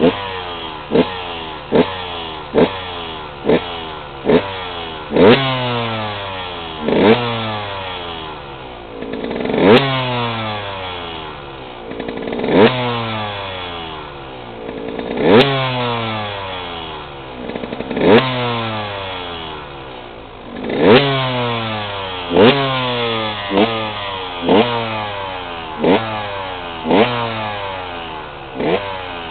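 KTM 125 EXC two-stroke single-cylinder engine, already warm, blipped over and over at idle: each quick rev-up drops back through a falling pitch, with a few bigger revs held slightly longer.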